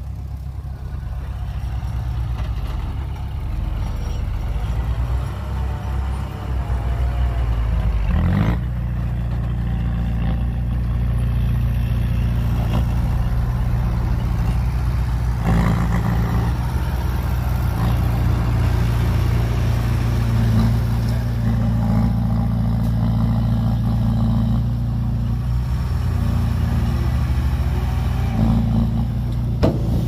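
Heavy diesel earth-moving machinery running hard, the engine growing louder over the first eight seconds or so and then holding steady, with a short clank about eight seconds in and another about halfway through.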